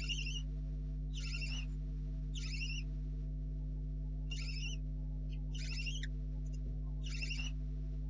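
Barn owl owlets giving short rasping, hissing begging calls, about six in a row, each roughly half a second long and repeated every second or so. A steady electrical hum from the nest-box camera runs underneath.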